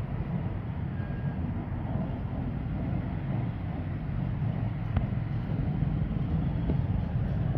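Wind buffeting the microphone: a steady low rumble, with a faint click about five seconds in.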